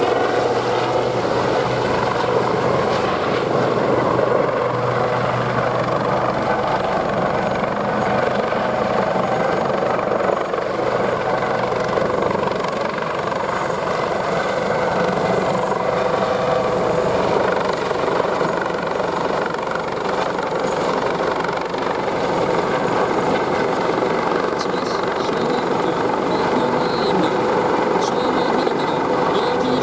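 Fire department rescue helicopter flying overhead, its rotor and turbine running steadily.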